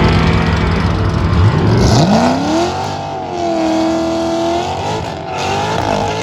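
A vehicle engine revving up under hard acceleration. After a low rumble, the pitch climbs steeply about two seconds in, holds high for a couple of seconds, then eases and rises a little again.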